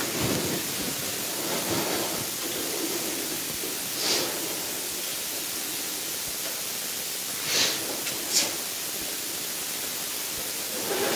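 Steady hiss of room noise, with three brief soft high-pitched rustles about four, seven and a half and eight and a half seconds in.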